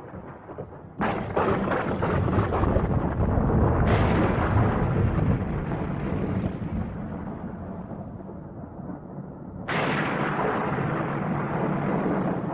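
Thunder: three sudden claps, about a second in, near four seconds and near the end, each followed by a long deep rumble that dies away slowly.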